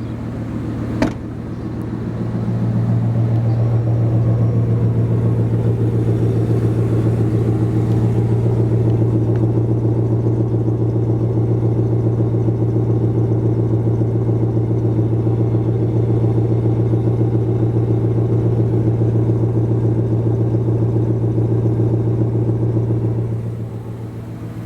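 Jeep Cherokee engine idling steadily after standing for over a week, its throttle cable disconnected so it runs without any gas and is at risk of stalling. A single click sounds about a second in; the engine grows louder about two seconds in and eases back near the end.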